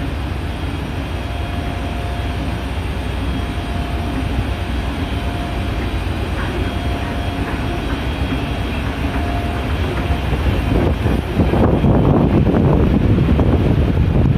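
Escalator running: a steady low hum and rumble with a faint tone that comes and goes. About eleven seconds in, a louder rushing, rumbling noise takes over.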